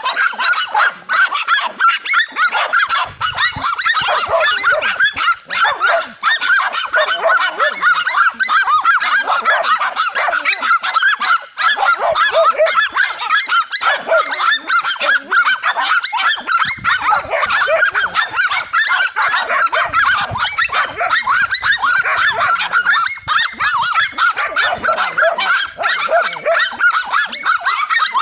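A pack of dogs barking and yapping without pause at a cornered monitor lizard. Their short, high barks overlap into a dense chorus.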